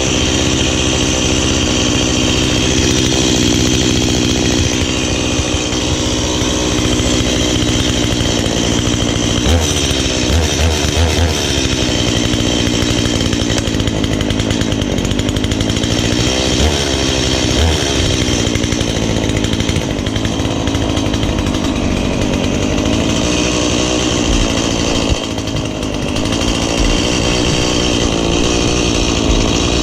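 Stihl two-stroke chainsaw running just after a cold start, idling with the choke off while it warms up. Its engine pitch rises and falls a few times in the middle.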